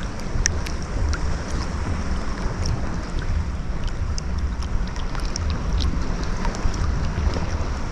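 Gentle ocean waves washing on a beach, a steady rush of surf with scattered small ticks and crackles, under a low rumble of wind buffeting the microphone.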